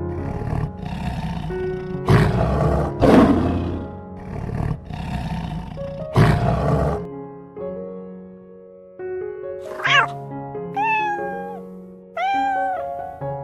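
Three rough, growling animal calls, then a cat meowing three times, over soft piano background music.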